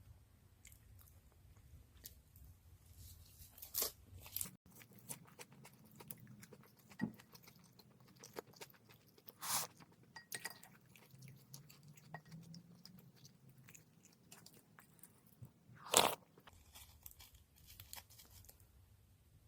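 Chewing and crunching of rice wrapped in crisp roasted seaweed sheets (gim), with many small crackles and a few louder crunchy bites, the loudest about sixteen seconds in.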